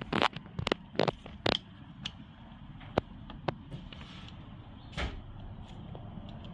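Sharp clicks and knocks from parts being handled on an outboard motor's gearcase during a gear oil change: a quick run of about four in the first second and a half, then a few single clicks spaced out.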